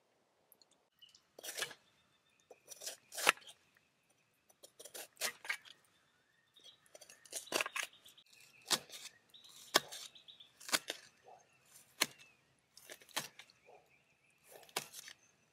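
A knife cutting food in a steel camp pan, the blade knocking against the pan bottom a dozen or so times at uneven intervals, some strikes leaving a faint metallic ring.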